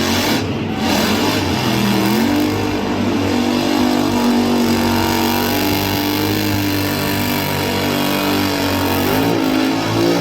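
Car engine running at high revs with a steady, held note, its pitch dipping and climbing back about two seconds in and again near the end.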